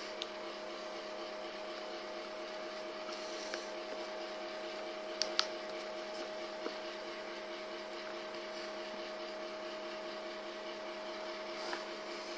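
A steady electrical hum with one constant tone, and a few light clicks and taps from a smartphone's cardboard box and the phone being handled and set down, the sharpest pair about five seconds in.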